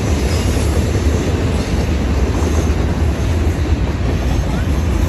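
Freight train of tank cars and boxcars rolling past, a steady rumble of steel wheels on the rails.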